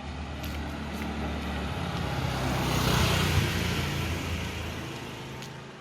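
A motor vehicle driving past: engine rumble and tyre hiss build to a peak about three seconds in, then fade away.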